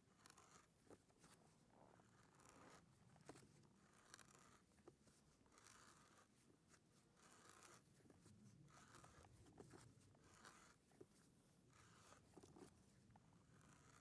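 Hand auger boring into the end grain of a sawn log round: faint, rhythmic crunching and scraping as the spiral bit cuts wood shavings, about one burst per turn, roughly once a second.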